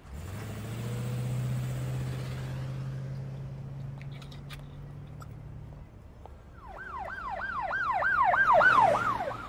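A steady low engine hum for about six seconds, with a couple of faint clicks partway through, then a police siren sound effect in a fast yelp, sweeping up and down about three times a second and growing louder.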